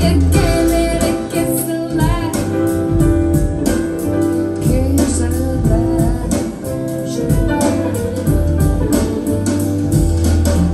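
Recorded music with singing, plucked guitar and a steady bass line, played back over KEF LS50 Meta bookshelf speakers with a subwoofer.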